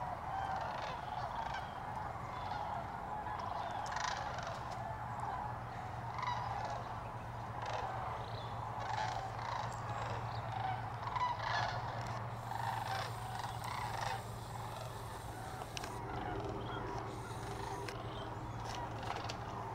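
A flock of sandhill cranes calling in flight, many rolling calls overlapping in a continuous chorus that sounds almost Jurassic.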